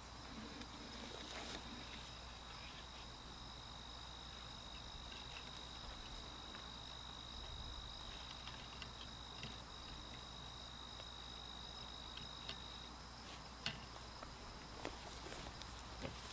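Faint, steady high-pitched insect trill that stops about thirteen seconds in, over quiet outdoor background. A few faint clicks come near the end.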